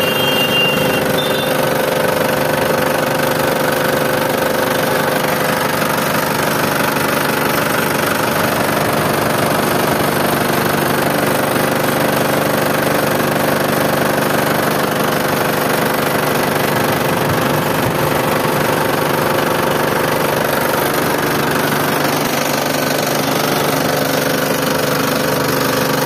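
Mahindra Bolero DI's four-cylinder direct-injection diesel engine idling steadily, heard close over the open bonnet, with about 100,000 km on it.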